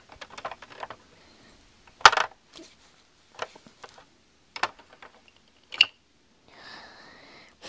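Hard plastic toy figurines and playset pieces clicking and knocking together as they are handled: a quick cluster of small clicks at the start, then single sharper knocks every second or so, the loudest about two seconds in.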